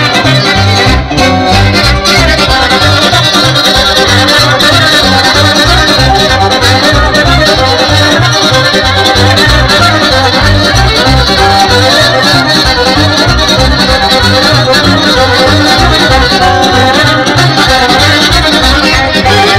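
Loud folk dance music with accordion and violin over a steady bass beat.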